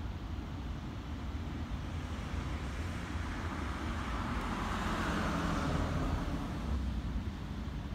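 A vehicle passing by, its sound swelling to a peak about five seconds in and then fading, over a steady low rumble of traffic and outdoor air.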